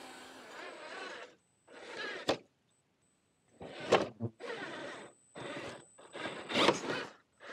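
JDModel JDM-150 Desert Runner 1/10 scale RC crawler truck driving over pine needles and roots: its brushed electric motor and drivetrain whir as the tyres crunch along. The sound comes in several short bursts, each cut off suddenly by silence, with one sharp click about two seconds in.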